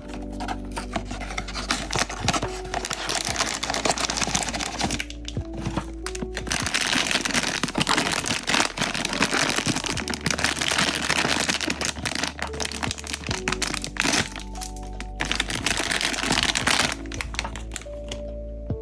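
Plastic or foil packaging being crinkled and torn open by hand, a dense crackling that stops near the end, over background music.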